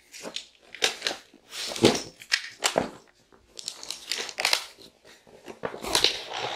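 Cybex Eezy S Twist 2 stroller being unfolded: a run of sharp clacks and rattles from the folding frame and its joints snapping open. Later the canopy fabric rustles as it is pulled out.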